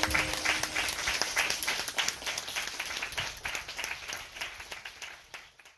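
Audience applauding, a dense patter of many hands clapping that gradually fades and stops just before the end.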